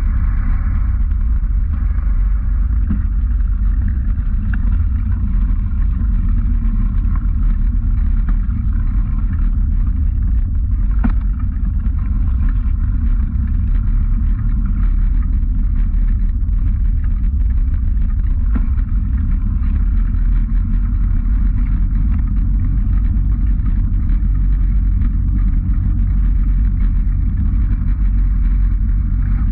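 Steady low rumble of wind and riding vibration on a moving camera along a paved path, with a sharp knock about eleven seconds in and a fainter one a few seconds later.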